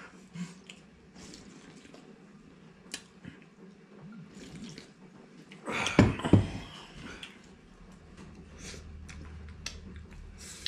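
Small clicks and clinks of people eating at a table: chopsticks against bowls and dishes. There is a louder short sound about six seconds in, and a faint low hum comes in near the end.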